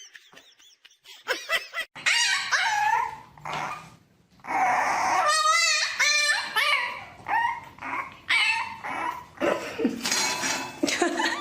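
A dog vocalising in a string of short barks, yips and whines, with a longer wavering whine about halfway through.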